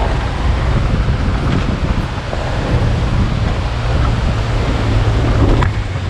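Car engine running under load as the car labours up a steep, rocky dirt track, mixed with wind buffeting the microphone and rushing river water.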